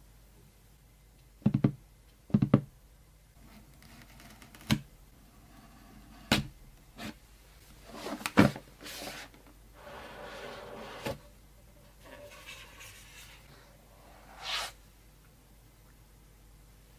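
Handling noises while unboxing a tablet: a series of sharp knocks and taps, a scraping, sliding stretch of about a second some ten seconds in, and a short rustle a few seconds later.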